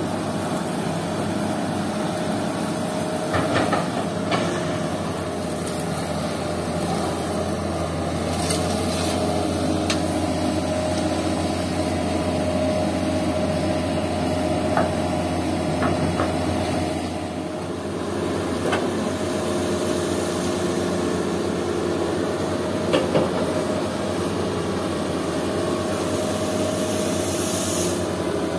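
Hitachi hydraulic excavator's diesel engine running steadily under digging load, with a few sharp knocks from the bucket as it scoops wet sand and gravel.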